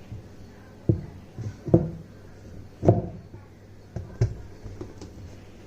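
Irregular knocks and clunks of washing machine parts being handled and seated during gearbox reassembly, about six separate thuds, the loudest about three seconds in.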